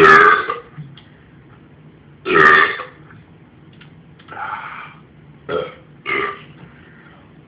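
A person belching repeatedly from gulping carbonated malt liquor: two loud, long burps at the start and about two and a half seconds in, then a softer one and two short ones.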